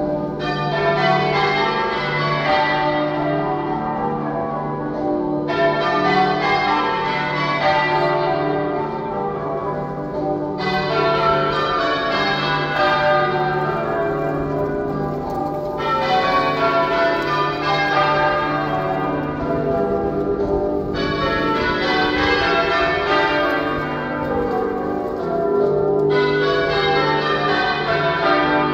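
Manchester Cathedral's ring of church bells being change-rung half-muffled: one stroke of each bell is open and the other damped, for Remembrance ringing. The peal runs continuously, with a fresh surge of brighter ringing about every five seconds.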